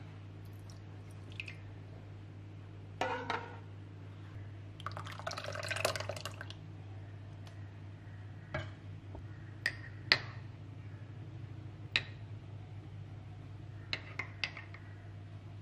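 Soy milk poured into a ceramic bowl of cooked barley, then a ceramic spoon clinking against the bowl about six times as it stirs. A low steady hum runs underneath.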